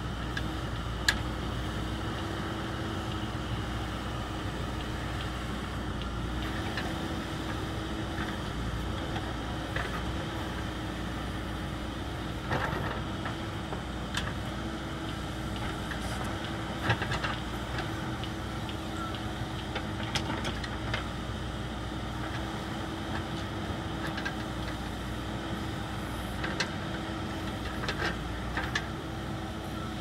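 JCB backhoe loader's diesel engine running steadily as the machine digs, with occasional sharp knocks from the digging arm and bucket.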